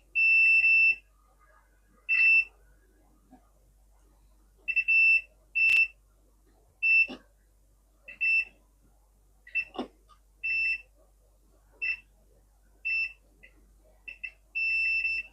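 Electronic beeper sounding one steady high tone in about a dozen short beeps of uneven length at irregular intervals, with faint clicks between them.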